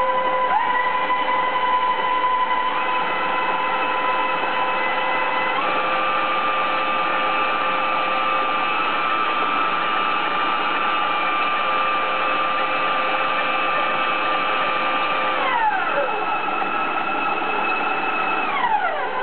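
Two KitchenAid stand mixers running together, their motors whining steadily while their beaters work softened butter. The whine steps up in pitch a few times in the first six seconds, then glides down about 15 seconds in and again near the end, as the mixer speeds are changed.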